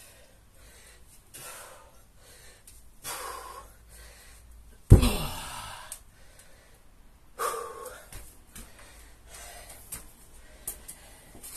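A man breathing hard, with heavy, gasping exhalations every second or two. One loud thud about five seconds in, with a brief ring that falls in pitch.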